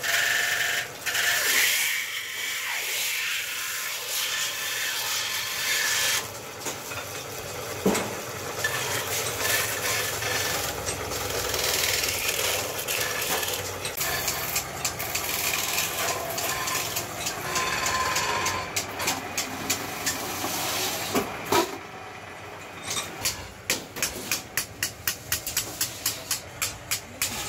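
Metal-spinning lathe running, with the scrape and hiss of a hand-held forming tool pressed against a spinning iron sheet as it is shaped into a bowl. Near the end comes a run of sharp, regular clicks, about three a second.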